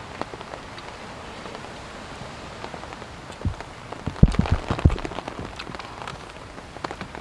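Steady rain falling on a canvas tipi tent, heard from inside, with scattered drop clicks on the fabric. Between about three and a half and five seconds in, a short cluster of louder close knocks and rustles stands out over it.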